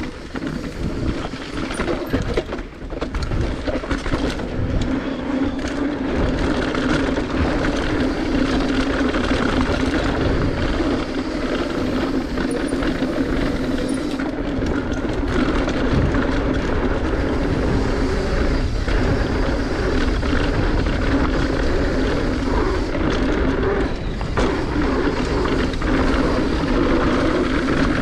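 Mountain bike descending a dirt trail at speed: a steady rush of knobby tyres rolling over the dirt, the bike rattling, and wind rumbling on the camera microphone.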